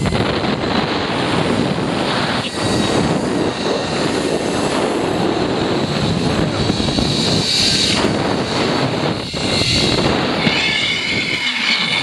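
Steady loud rush of wind buffeting the microphone during a zip-line ride along the cable.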